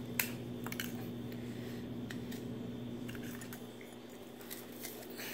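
Fingers picking and scratching at the open mouth of a glass supplement bottle: one small click just after the start, then a few faint ticks, over a steady low hum.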